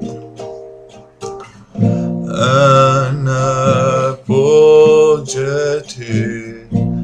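Classical nylon-string guitar played, its chords ringing down quietly with a few plucks for about the first two seconds. Then guitar chords are strummed under a man singing long, wavering held notes.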